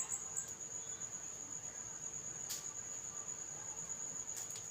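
Cricket trilling steadily in one continuous high tone, with a few faint clicks.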